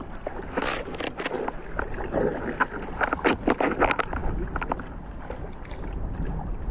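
A run of sharp clicks, taps and a brief rustle from fishing gear being handled in a small boat, busiest in the first two thirds, over a steady low rumble of wind.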